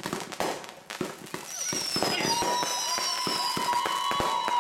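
Fireworks going off in a rapid, irregular string of bangs and crackles, with several long whistles joining in about halfway through.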